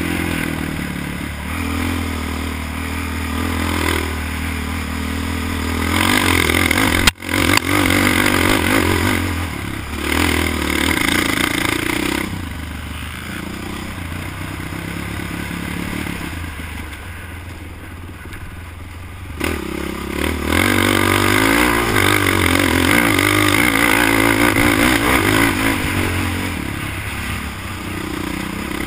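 Sport quad ATV engine running hard over a dirt track, its revs rising and falling with the throttle. The engine eases off for several seconds around the middle, then goes back to full throttle.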